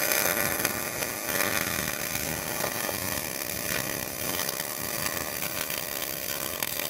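MIG welder arc crackling steadily as a weld is run on a replacement truck frame rail section.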